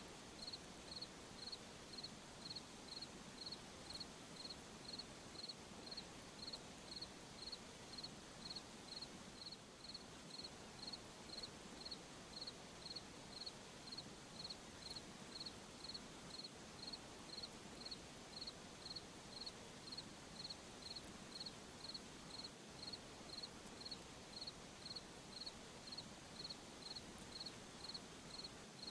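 A single cricket chirping steadily, short high-pitched chirps at an even pace of about two a second, over a faint hiss of night background.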